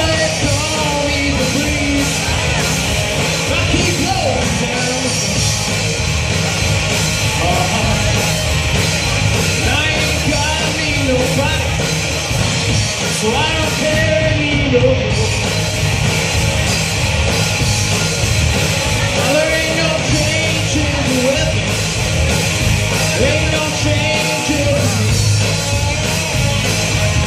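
A rock band playing live: two electric guitars, bass guitar and drum kit, loud and steady throughout.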